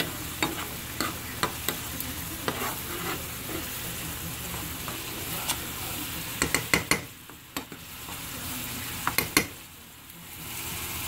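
Metal spoon stirring a skillet of mushroom cream sauce, clinking and scraping against the pan over a steady sizzling hiss. A quick run of sharper clinks comes about six and a half seconds in and again about nine seconds in.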